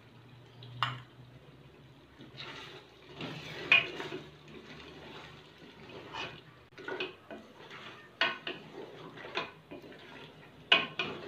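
Stirring in a cooking pot: a utensil scraping and knocking against the pot in irregular strokes, mixing freshly added oil, chili powder, turmeric and salt into cooked mutton trotters.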